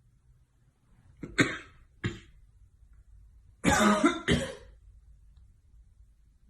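A person coughing: two short coughs a little over a second in, then two louder, longer coughs close together near the middle.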